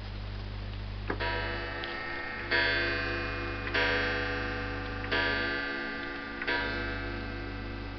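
Pendulum wall clock striking the hour: five ringing strikes about 1.3 seconds apart, the first about a second in, each fading before the next. The clock ticks underneath.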